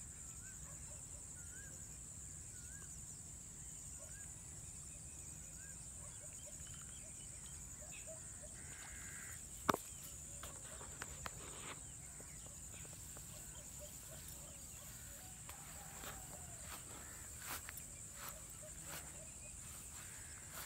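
Quiet outdoor ambience: faint birds calling, over a steady high hiss. A sharp click comes about ten seconds in, then a few lighter ones.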